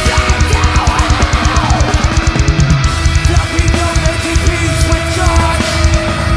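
A heavy metal band playing live: a fast, steady drum beat pounding under distorted electric guitar.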